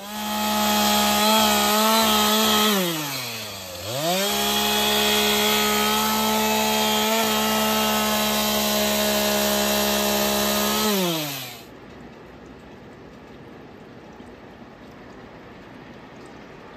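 Stihl two-stroke chainsaw revving at full throttle with a steady high note. About three seconds in the throttle is eased off, so the pitch sinks and climbs straight back. Near eleven seconds it is released and the sound falls away and stops.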